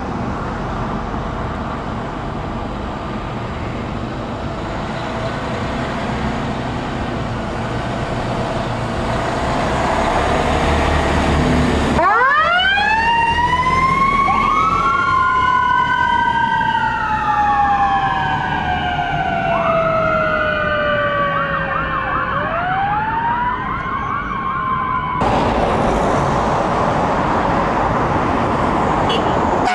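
Road traffic and engine noise for about twelve seconds, then, after an abrupt cut, emergency vehicle sirens: one winds up and falls slowly in pitch over several seconds before winding up again, while a second siren yelps rapidly over it. Near the end it cuts abruptly back to road noise.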